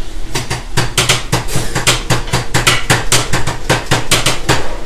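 Rapid, even knife chopping on a cutting board, about five strokes a second.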